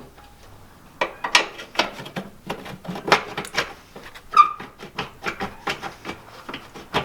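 A run of irregular clicks and knocks, several a second, starting about a second in, with a brief squeak about four seconds in.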